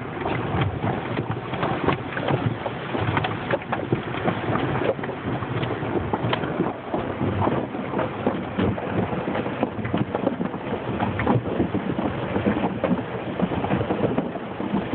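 Automatic car wash heard from inside the car: water and foam spraying onto the body and windows, a dense, irregular patter of hits.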